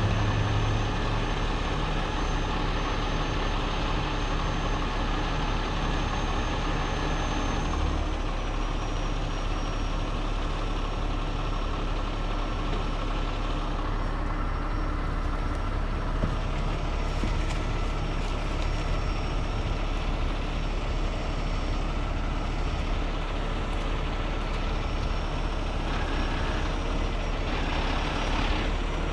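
Heavy rotator tow truck's diesel engine running steadily, with a faint high whine above it.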